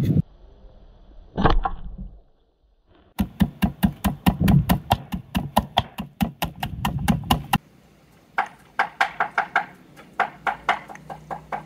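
A single thump, then a run of quick, even knocks, about five or six a second, for some four seconds; after a short pause, a second, lighter run of knocks.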